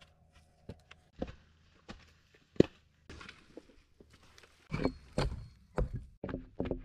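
Knocks and thuds of heavy timber being handled and set in place around a wooden post: scattered single knocks with one sharp crack, then a quick run of heavy thuds, several a second, over the last two seconds.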